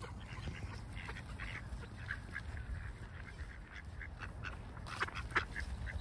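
A group of mallard ducks calling with many short quacks scattered throughout, one louder call near the end.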